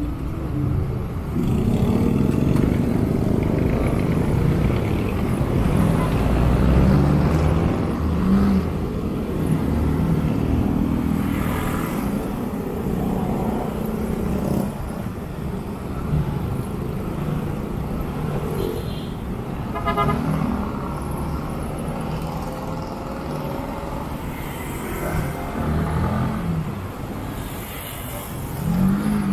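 Motorcycle riding in slow, congested city traffic: its own engine and the surrounding car and motorcycle engines, with road noise. A short car horn toot sounds about two-thirds of the way in.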